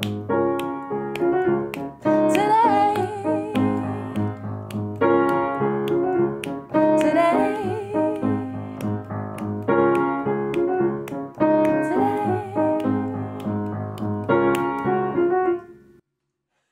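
Closing bars of a live acoustic pop song on piano: repeated chords with a wavering melody line above them, and the music stops abruptly shortly before the end.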